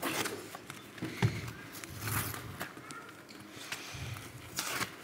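Scattered stage handling noises: rustling of paper sheets, shuffling and a few soft knocks, with a louder rustle shortly before the end.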